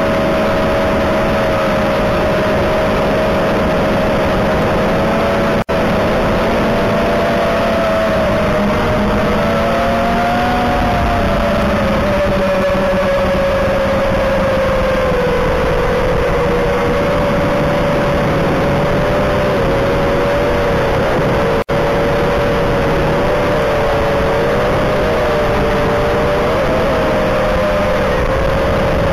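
Eachine Wizard X220 racing quadcopter's brushless motors and propellers whining in flight, the pitch wavering up and down as the throttle changes. The sound cuts out very briefly twice, about six seconds in and again past twenty seconds.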